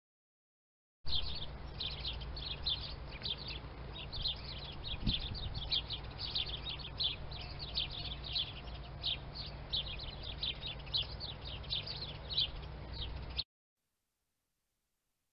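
Sparrows chirping, many quick high chirps overlapping one another, over a steady low rumble. It starts about a second in and cuts off suddenly near the end.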